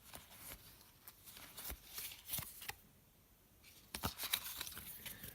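Trading cards being handled and flicked through: faint, scattered rustles and small clicks, with a short near-silent pause about three seconds in and a busier cluster of clicks near the end.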